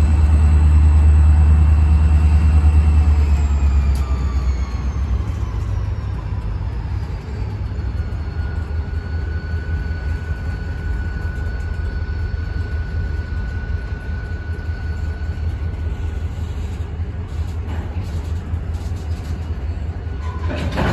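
Freight train rolling slowly past: the low rumble of the CSX diesel locomotives, strongest in the first few seconds, gives way to the steady rumble of freight cars on the rails. A high metallic squeal falls in pitch about three seconds in, then holds steady for several seconds, from the train's running gear as it slows for a signal.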